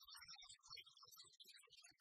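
Near silence, with only faint, broken-up scraps of sound.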